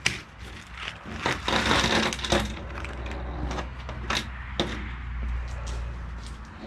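Small metal hinge pins and bushings in an assorted parts kit clinking and rattling as they are sorted through by hand, a string of irregular light clicks with a busier rattle about a second or two in.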